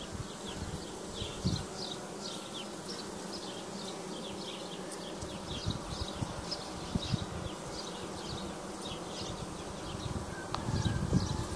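Honeybees buzzing in a steady hum over an open hive, with a few light knocks from wooden frames being handled.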